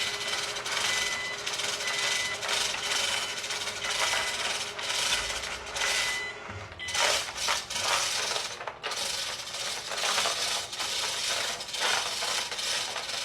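Loud ship engine-room machinery noise with irregular rattling and clanking and an intermittent high-pitched beep.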